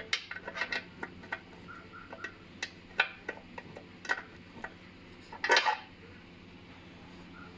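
Small metal pieces clinking and tapping together in scattered light clicks, with a louder rattle about five and a half seconds in: fragments of a broken engine bearing shell being handled after they came out of the oil pan.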